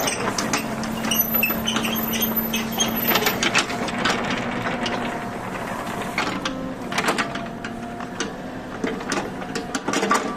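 Kubota U30-3S mini excavator's diesel engine running with a busy mechanical clatter, broken by frequent sharp knocks and clanks.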